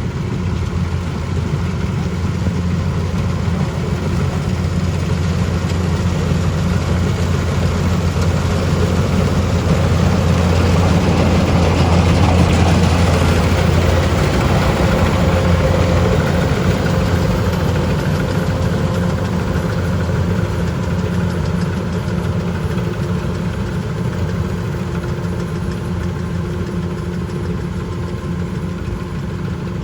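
A farm machine's engine runs steadily with a low hum. It grows louder toward the middle and then fades somewhat, as if the machine passes close by.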